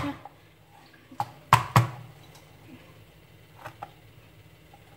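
Sharp knocks of a kitchen knife and garlic cloves on a plastic cutting board as the cloves are crushed under the flat of the blade: two loud knocks about a second and a half in, with a few fainter taps before and later.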